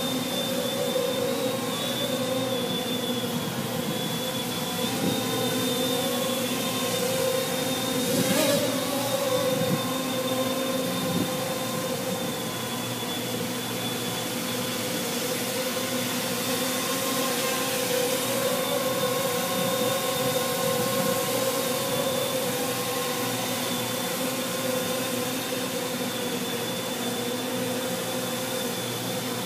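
Custom-built quadcopter's four electric motors and propellers humming in flight, a steady multi-tone buzz whose pitch wavers slightly as the throttle works to climb and hold position. One short sharp noise cuts through about eight seconds in.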